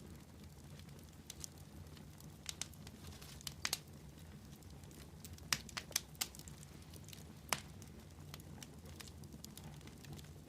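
Burning logs crackling in a wood fire: irregular sharp pops and snaps, the loudest clustered in the middle, over a low steady hum.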